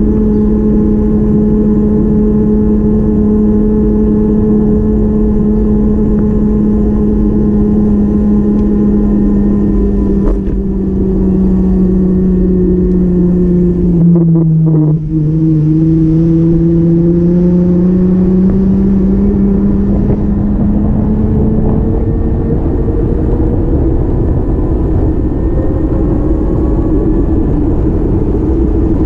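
Motor vehicle droning steadily over a loud low rumble. Its whine sinks in pitch to a low point about halfway through, where there are a few clicks, then climbs back up.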